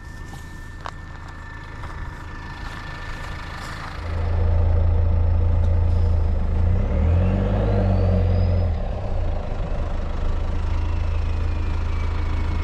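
Vehicle engine idling steadily close to the microphone, coming in loudly about four seconds in after a quieter stretch.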